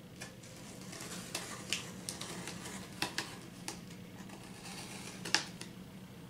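A pen point scraping and jabbing at packing tape on a cardboard box: a run of scratchy rasps and clicks, with a sharper snap about five seconds in.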